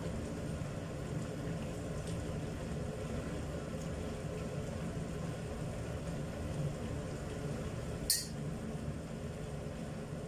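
Jengkol stew simmering in a wok, a steady low hiss and bubble, with one sharp clink about eight seconds in.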